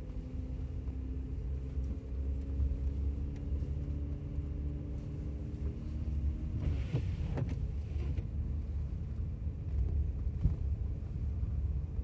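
Car driving slowly on a snow-covered road: steady low engine and tyre rumble, with an engine hum that climbs slightly in pitch and drops away a little past halfway, and a brief knock soon after.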